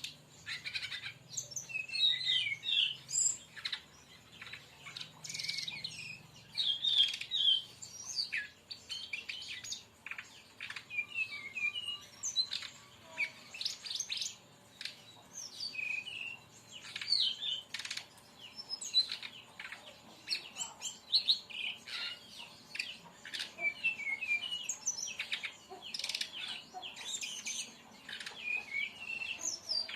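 Brown-chested jungle flycatcher (sikatan rimba dada coklat) singing a rapid-fire 'tembakan' song: a continuous stream of quick, high chirps, twittering trills and sharp notes with hardly a pause.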